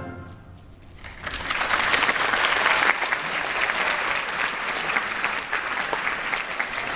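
The tail of the orchestra's last chord fades out. About a second in, the audience starts applauding, and the clapping carries on steadily.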